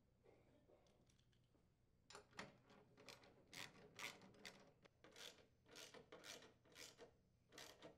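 Hand nut driver turning screws into a snowblower's auger housing: a faint run of short scraping twists, about two a second, starting about two seconds in.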